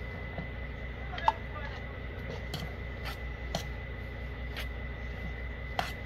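Metal spoon stirring a soft mash in a stainless steel bowl, clicking against the bowl about six times at uneven intervals, sharpest about a second in. A steady faint hum runs underneath.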